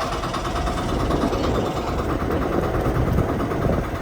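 Motorboat engine running steadily, with a fast, even pulse.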